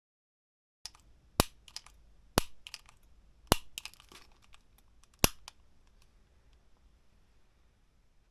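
Four sharp clicks at uneven intervals, with fainter clicks between them, over low room hiss.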